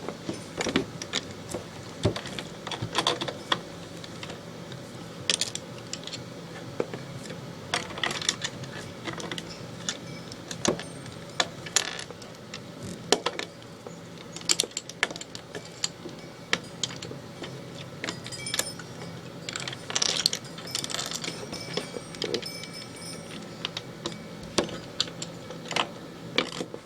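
Plastic Lego pieces clicking and rattling as they are handled, sifted and fitted together, with many small irregular clicks.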